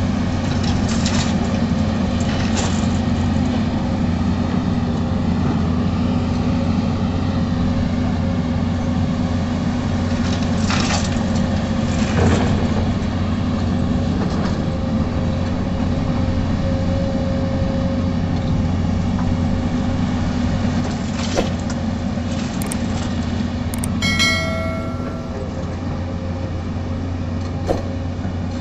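Case CX220C hydraulic excavator's diesel engine running steadily under load while it digs, a low drone with a faint steady whine, broken by a few clunks of the bucket and soil. A brief ringing tone sounds about 24 seconds in.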